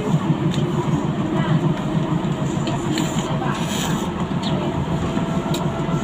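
Docklands Light Railway train running between stations, heard from inside the carriage: a steady low rumble with a few faint clicks.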